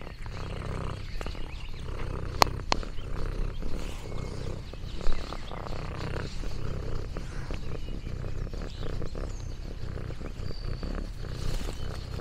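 A domestic orange tabby cat purring steadily close to the microphone, a low continuous rumble. Two sharp clicks come about two and a half seconds in, and a soft thump near five seconds.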